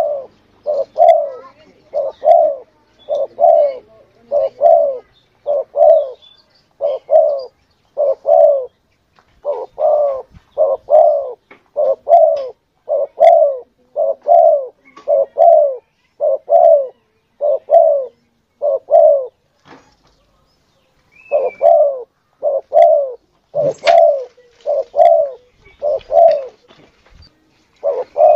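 Spotted dove (tekukur) cooing over and over, a steady run of low, evenly spaced coos with a short break about two thirds of the way through. It is a lure call, played to draw spotted doves in.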